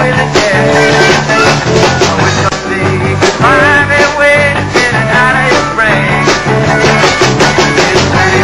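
Live country-rock band playing, with strummed acoustic guitar over a bass line and a steady beat.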